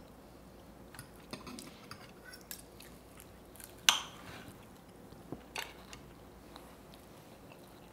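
Forks and a knife clicking and scraping against dinner plates as food is cut and picked up, a few scattered clinks with the sharpest one about four seconds in.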